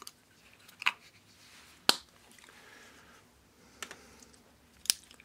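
Four sharp clicks a second or two apart from small hard objects being handled, the loudest about two seconds in and near the end, with a quiet room between them.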